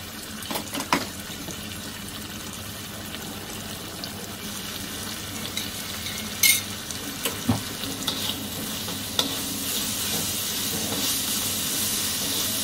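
Chillies and spring onion sizzling in a wok just after the seasoning goes in, with a few sharp knocks of the spatula against the pan. The sizzle grows louder in the second half as the stirring starts.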